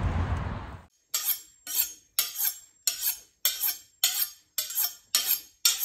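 A kitchen knife being honed on a sharpening steel: short, bright metallic scrapes of blade along rod, about two strokes a second. Before that, a rushing noise cuts off suddenly just under a second in.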